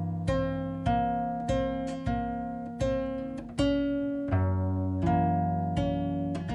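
Background music on acoustic guitar: a slow piece of plucked notes and chords, a new note struck about every half second to second and left to ring.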